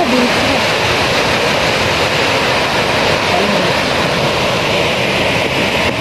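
Loud, steady rush of a waterfall pouring into a pool close by.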